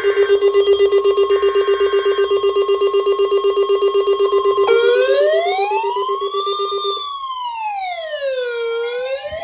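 Emergency alert tones: a loud, rapidly pulsing buzz and a steady high tone over faint bursts of data noise. About five seconds in, a wailing siren starts, rising and falling slowly about once every four seconds.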